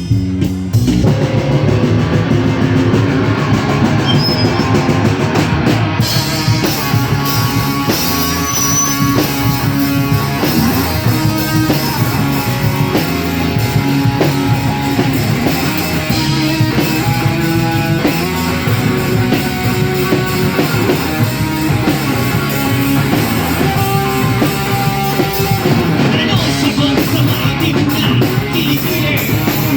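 A live rock band playing: drum kit, electric guitar and bass, loud and continuous.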